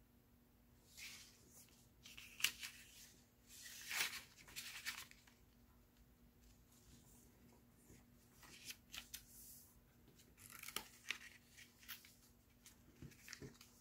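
Paper rustling, sliding and crinkling as a banknote is slipped into a folded paper envelope and the envelope is handled and pressed flat. The sound comes in short, quiet bursts with a few sharp ticks.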